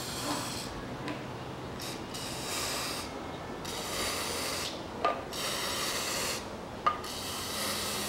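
Aerosol can of engine assembly paste spraying in about five short hisses, each lasting about a second, with brief pauses and a few small clicks between them.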